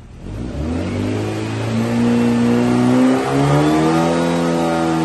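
Air-cooled VW 2332cc flat-four Baja engine with a stainless buggy exhaust being revved on a run stand: the revs climb steadily, dip briefly about three seconds in, then hold at a higher speed.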